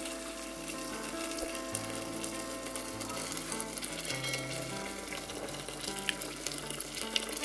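Hot water poured from a kettle into a metal cooking pot on a charcoal stove, a steady pour that runs without a break. Slow background music with held notes plays underneath.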